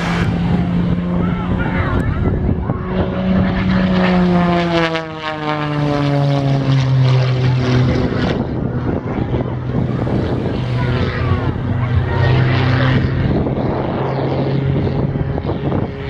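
Single-engine aerobatic propeller plane flying a display. Its engine drone falls in pitch about five seconds in, during a vertical climb, then holds steady.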